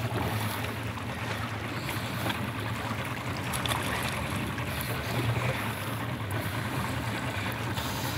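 Water sloshing and splashing against the side of a small boat as a sailfish is hauled out of the sea, with wind on the microphone and a steady low hum underneath.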